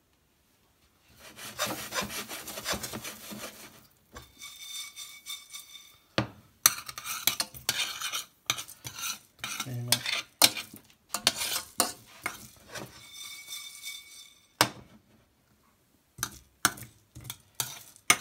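Metal spoon stirring dry coriander seeds in a stainless steel saucepan, scraping and clinking against the pan, with the pan ringing twice, while the seeds are dry-roasted.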